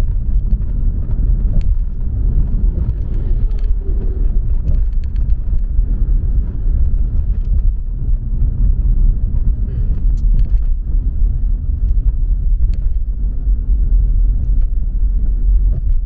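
Car driving at a steady speed, heard from inside the cabin: a continuous low rumble of road and engine noise.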